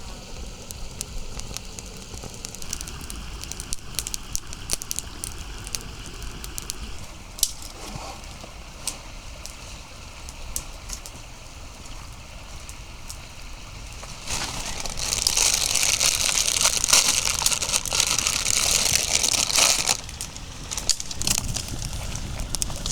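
A campfire crackling with sharp pops. About two-thirds of the way through, a loud, steady hiss starts suddenly and cuts off about six seconds later.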